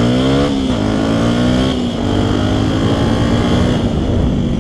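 Yamaha WR125X single-cylinder four-stroke engine through a LeoVince LV One aftermarket exhaust, accelerating under way. Its pitch climbs, drops sharply at upshifts about half a second in and again just under two seconds in, then holds steady and eases off near the end.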